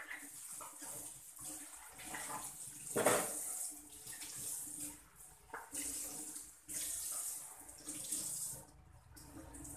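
Water running from a tap in an uneven hissing stream, with a couple of short pauses.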